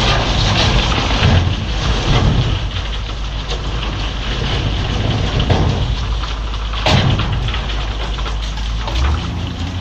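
Heavy earthmoving machinery working: a steady low rumble with a crackling rush over it, and a sharp clank about seven seconds in.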